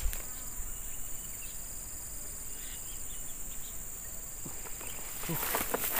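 A steady, high-pitched chorus of insects shrilling in the streamside vegetation, with a burst of rustling near the end.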